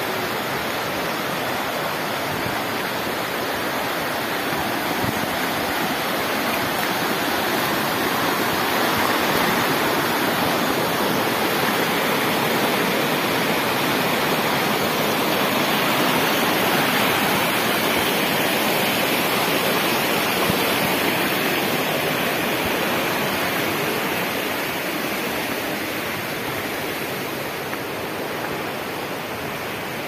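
Fast, muddy stream rushing over rocks in white-water rapids, a steady dense rush of water. It grows louder towards the middle and eases off near the end.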